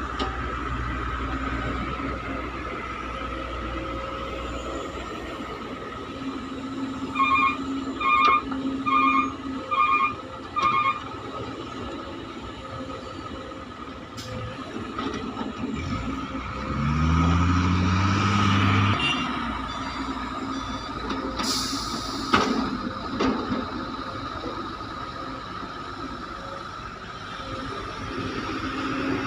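Diesel heavy machinery running at a mine loading site, with a steady whine throughout. About a quarter of the way in, five short beeps sound, like a reversing alarm. Past the middle, an engine revs up and holds for a couple of seconds, and a short hiss follows, like a truck's air brake.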